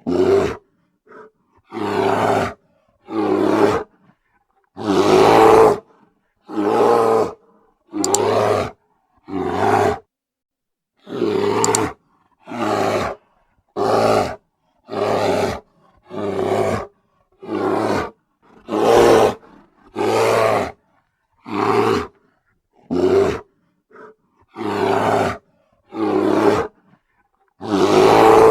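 Bear roaring again and again: about twenty short, loud roars, each under a second to about a second long, roughly one a second with silent gaps between them.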